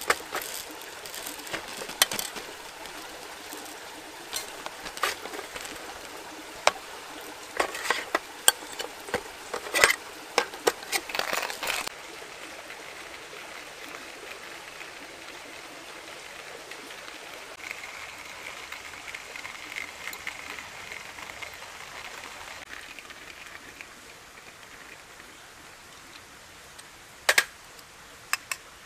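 Coffee beans rattling and clicking as they are poured from a crinkling plastic bag into a stainless steel hand coffee mill, with sharp clicks for about the first twelve seconds. After that comes a steady rushing, with a couple of clicks near the end.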